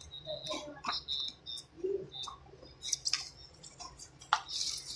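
Scattered small clicks and ticks with a few brief high squeaks as a phone's cracked touch glass is pried off the display with a blade and a plastic card.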